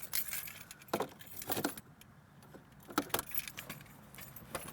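A bunch of car keys jangling and clinking in several short bursts as they are handled, with a quiet pause about two seconds in.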